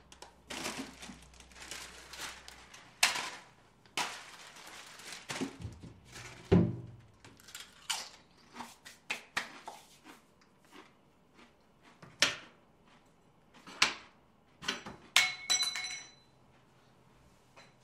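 Foley of handling at a kitchen sink cupboard: an irregular run of knocks, clunks and small rattles as things are moved about, with a heavier thunk about six and a half seconds in and a brief ringing tone near the end.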